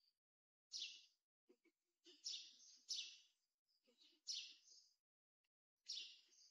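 A small bird chirping: a series of about five short, sharp chirps spaced roughly a second apart.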